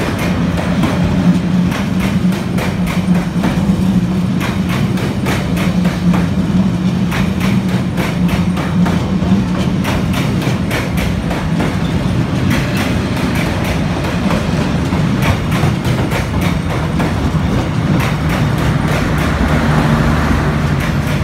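Passenger train coaches rolling past at close range, wheels clicking repeatedly over rail joints over a steady low hum. The sound deepens into a lower drone near the end as the last cars go by.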